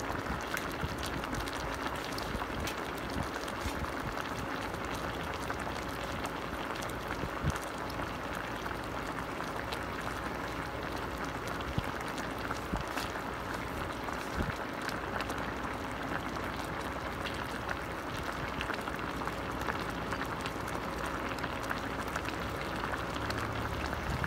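Chicken adobo boiling in a stainless steel pot: a steady bubbling hiss of the simmering sauce, with small scattered pops. A faint steady hum runs underneath.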